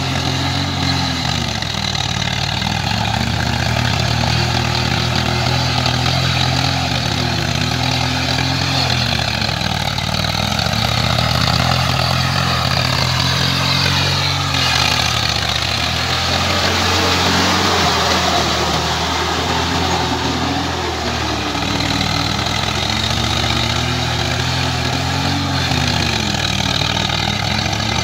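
Swaraj 744 FE tractor's three-cylinder diesel engine running under load as it pulls a rotavator through wet paddy mud, its pitch wavering slightly as the load changes.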